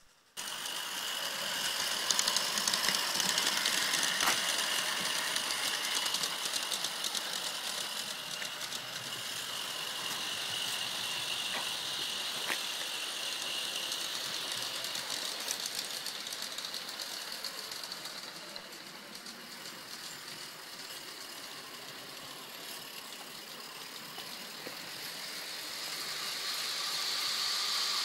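G-scale model locomotive hauling log wagons along garden track: a steady mechanical rattle and hiss with fine ticking from the wheels on the rails. It comes in abruptly at the start, eases off in the middle and grows louder again near the end as the train comes closer.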